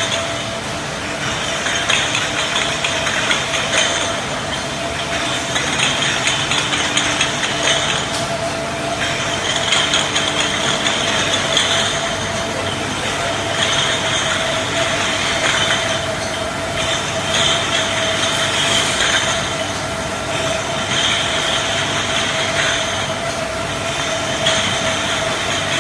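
Beer bottle washing machine running: a steady tone under a hiss that swells and fades about every two to three seconds.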